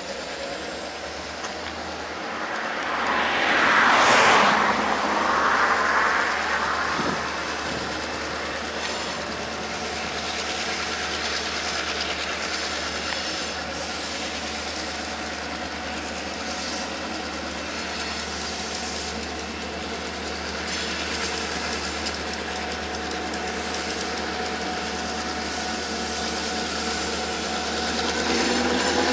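EMD diesel locomotives of an approaching freight train running in the distance: a steady drone made of several engine tones under a hiss. A louder rush of noise swells and fades about four seconds in.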